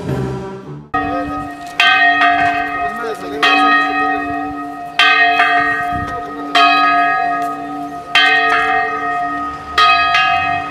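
A single large church bell tolled at a steady pace, seven strokes about a second and a half apart, each ringing on into the next.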